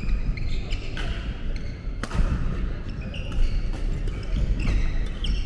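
Badminton hall sounds: scattered sharp knocks of rackets hitting shuttlecocks and short, high sneaker squeaks on the wooden floor, over a low rumble of hall noise and faint background voices.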